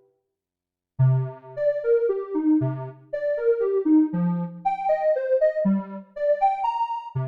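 Korg Minilogue XD synthesizer playing a preset, a melodic line of short pitched notes over a bass note roughly every second and a half, starting after about a second of silence.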